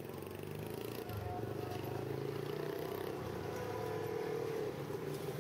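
Street traffic noise, dominated by the steady hum of small motorcycle engines running.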